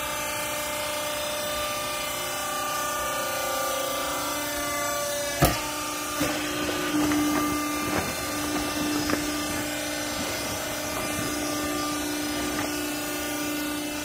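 Hydraulic clothing baler running with a steady mechanical hum. A single sharp knock comes about five seconds in, followed by a few lighter clanks and a steadier tone as the machine works.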